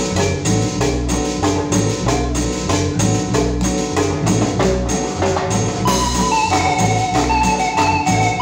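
Live cumbia band playing an instrumental stretch: a steady repeating bass line and percussion beat, with a sustained melody line entering about six seconds in.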